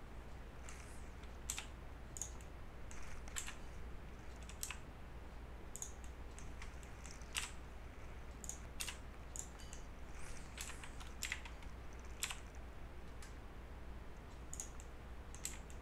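Computer keyboard keys and mouse buttons clicking at irregular intervals as 3D modelling shortcuts are entered, over a faint low hum.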